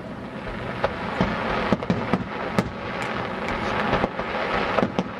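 Aerial fireworks shells bursting: a string of sharp bangs, roughly one every half second, over a continuous hiss of burning and crackling stars.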